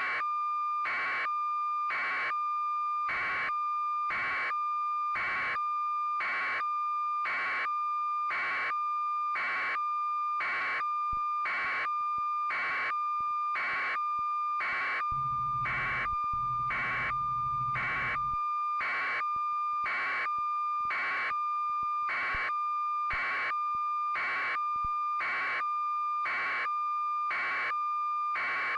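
Steady high-pitched electronic tone that pulses about once a second without a break, the kind of line tone laid on a raw video feed. A short low hum joins it about fifteen seconds in for around three seconds.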